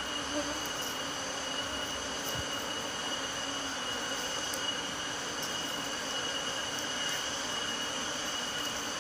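Steady insect drone: a continuous high-pitched whine with a fainter lower buzz underneath.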